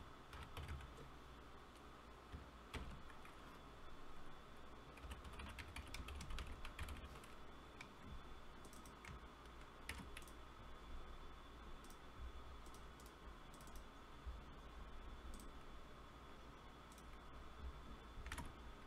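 Faint computer keyboard typing and mouse clicks in scattered bursts, over a faint steady electrical whine.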